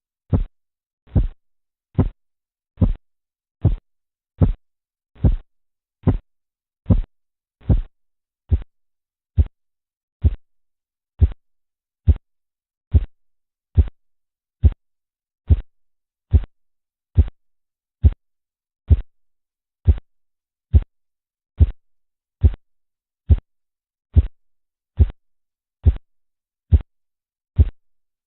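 Korotkoff sounds heard through a stethoscope over an artery compressed by a blood pressure cuff: a regular pulse of short low thumps, about 70 beats a minute, the arterial blood flow tapping with each heartbeat as the cuff pressure is let down.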